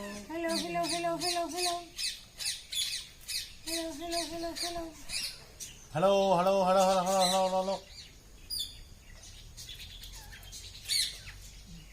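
Parrots squawking and chirping: a fast run of short high chirps, with three longer wavering calls about a second and a half long each. The loudest comes about six seconds in, and the last few seconds hold only a few scattered chirps.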